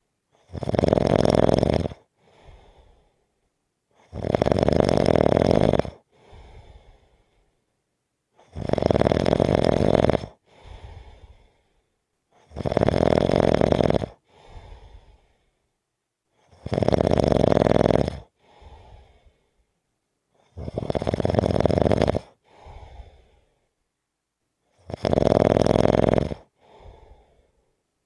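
Slow, regular snoring: a loud snore about every four seconds, each followed by a softer, shorter breath.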